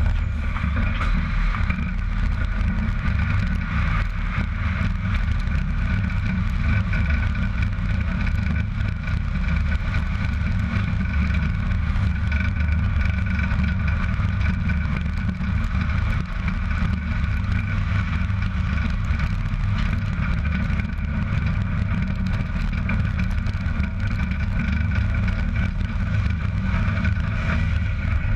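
Steady low rumble of a heavy wide trailer rolling along an asphalt road: tyre and road noise heard from right beside the trailer's wheels.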